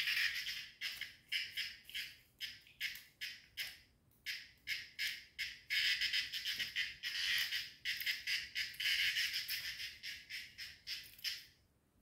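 A cicada giving its harsh distress buzz in a rapid run of rasping bursts while held in a cat's paws. The buzzing stops shortly before the end.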